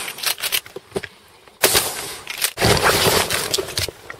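Two shotgun blasts, sharp and loud, about a second apart near the middle, each fading out over about a second, with small clicks and knocks of the gun being handled around them.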